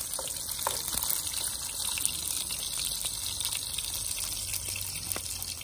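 Sliced pork and garlic cloves sizzling in a griddle pan on a portable gas stove: a steady high hiss with scattered small pops and crackles.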